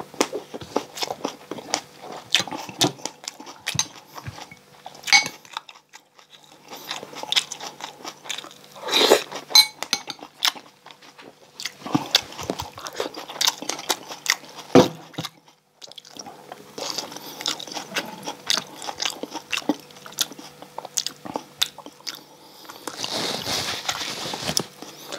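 Close-up mouth sounds of chewing and biting crispy deep-fried pork belly (bagnet): many sharp crunches of the crackling skin. They come in clusters, with short pauses about six and fifteen seconds in and denser crunching near the end.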